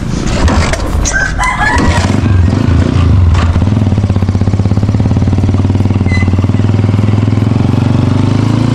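A rooster crows about a second in. Then a small engine runs steadily with a fast pulsing beat and rises in pitch near the end.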